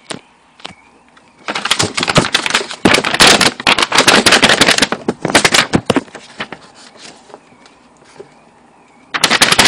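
A paper book shaken hard in the hands, its pages rattling and flapping in fast crackling clicks. The shaking runs from about a second and a half in to about six seconds, stops, and starts again near the end.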